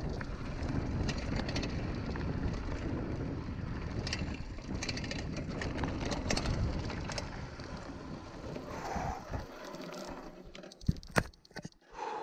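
Mountain bike rolling fast down a dirt trail: tyre and wind rumble with the bike rattling and clicking over the rough ground. About ten seconds in it quietens as the bike slows, leaving a few sharp clicks.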